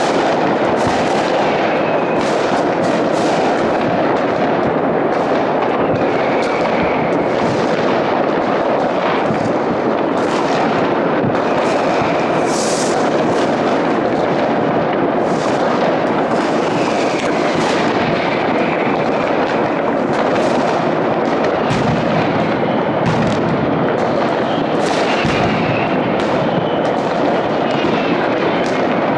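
Many fireworks going off across a city at once: a steady, dense din of bangs and crackles from rockets and firecrackers, with a few short whistles here and there.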